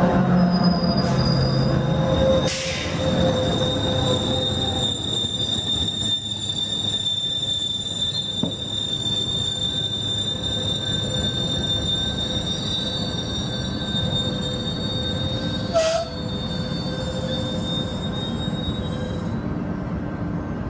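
HO scale model passenger train running past, a steady rumble with a thin, steady high whine over it. Two sharp clicks come about two and a half and sixteen seconds in.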